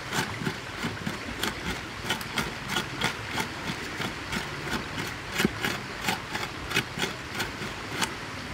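A cleaver chopping broccoli and carrot against a wooden chopping board in quick, even strokes, about three knocks a second.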